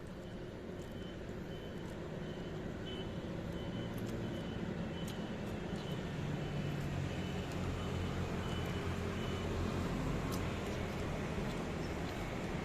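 A motor vehicle's engine running, with a reversing beeper sounding about twice a second. The beeping stops about three-quarters of the way through, while the engine rumble grows louder.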